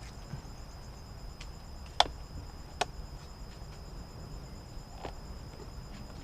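Two sharp clicks a little under a second apart, with a few fainter ticks, from parts being handled while reassembling a large-scale RC car, over a steady high trill of crickets.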